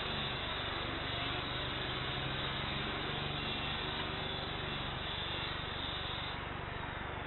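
The four GEnx jet engines of a Boeing 747-8 freighter idle while the aircraft stands on the ground, giving a steady rumble with a low hum that fades about five seconds in.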